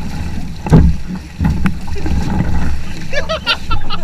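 Water splashing around a canoe, with a sharp splash about a second in and wind rumbling on the microphone; voices come in near the end.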